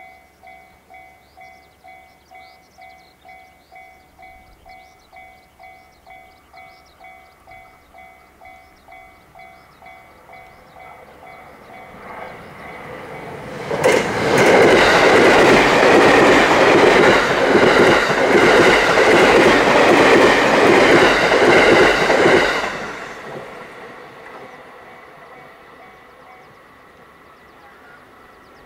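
Japanese railway level-crossing alarm, a newly replaced electronic bell, chiming about twice a second in a steady two-pitched pattern. About twelve seconds in, a train approaches, passes loudly for around eight seconds and cuts off sharply, then fades away.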